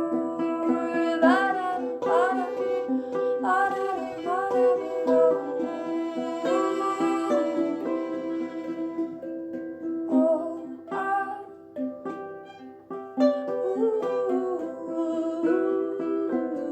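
Acoustic music: a plucked string instrument playing with a singing voice.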